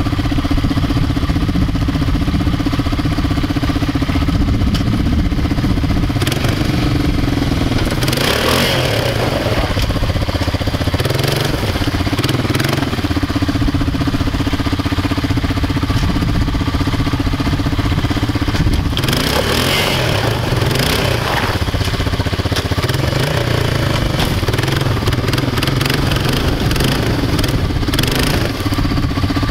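ATV (quad) engine running steadily under load while the machine sits with its front wheels in a snowy brook. It is revved harder twice, around a third and two thirds of the way through, with wheels churning water and slush.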